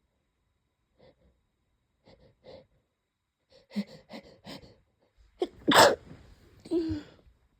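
A person's sneeze: a few faint sniffs, then quick catching breaths as it builds, then one loud sneeze about five and a half seconds in, followed by a shorter voiced sound.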